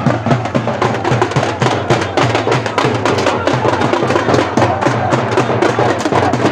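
Supporters' drum band beating a fast, driving rhythm on large double-headed drums struck with sticks, with voices over the drumming.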